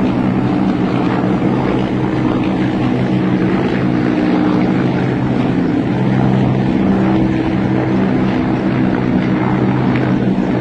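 A formation of military helicopters flying overhead: a loud, steady drone of rotors and engines, with a hum of several steady low tones.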